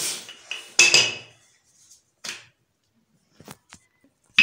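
Wooden rolling pin rolling samosa dough flat on a floured counter: a few rubbing strokes with knocks of the pin, the loudest about a second in, then a few light clicks near the end.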